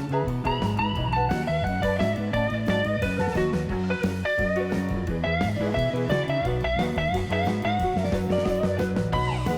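Background music: a blues-style guitar playing a lead line with bent notes over bass and drums.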